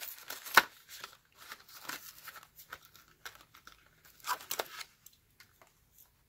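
Plastic and cardboard toy-car packaging being handled: irregular crinkling and rustling with scattered clicks, a sharp click about half a second in and a louder crinkle burst a little past four seconds.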